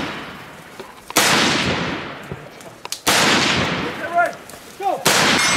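Three rifle shots about two seconds apart, each followed by a long echo that dies away; this is steady cover fire. A short shout comes between the last two shots.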